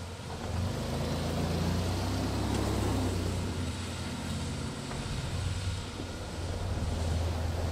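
Toyota Land Cruiser FZJ80's straight-six engine running under load while pulling a stuck vehicle out of deep snow on a kinetic recovery rope. The revs rise about half a second in, ease off midway, and rise again in the last few seconds.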